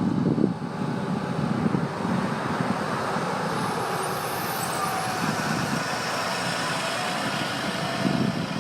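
Road vehicle noise: a steady rush of traffic with heavy truck engines running.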